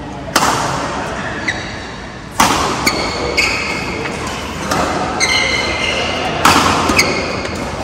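Badminton rallying: sharp racket hits on the shuttlecock, three of them loud, with short high-pitched squeaks of court shoes on the floor between them, echoing in a large hall.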